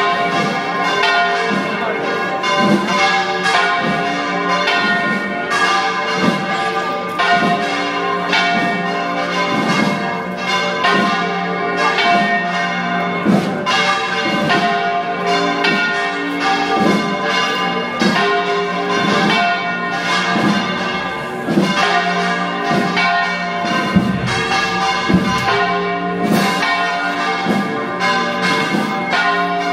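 Several church bells pealing together, struck over and over in quick, irregular succession so that their tones overlap and keep sounding.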